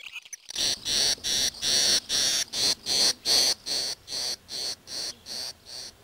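Barn swallow nestlings begging from the nest: a rapid run of high-pitched calls, about four a second, growing weaker near the end.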